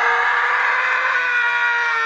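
A man screaming: one long, high, held scream that sags slightly in pitch toward the end.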